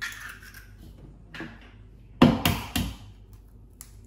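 Eggs being knocked against the rim of a mixing bowl to crack them: a few sharp taps, the loudest cluster just past the middle.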